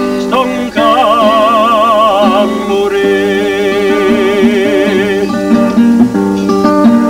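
Acoustic guitar strummed and picked in a break between sung lines of a Neapolitan song. About a second in, a man's voice briefly holds a wavering note; after that the guitar plays on its own.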